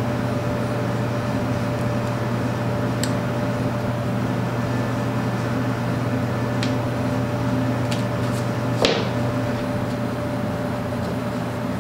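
Steady hum of workshop machinery, with a few light clicks from a metal pick worked against the aluminium overdrive housing. A sharper clack about nine seconds in as the pick is set down on the bench.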